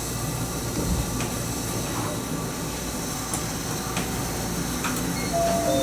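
Toyama Chiho Railway 20020-series electric train (ex-Seibu 10000 series New Red Arrow) heard from inside the car: a steady running rumble and hiss, with a few faint irregular clicks from the wheels on the track.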